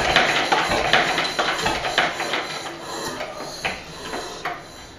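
Russell Newbery RD1 single-cylinder stationary diesel engine running down to a stop: its rhythmic knocking slows, the beats spread further apart and fade over a few seconds.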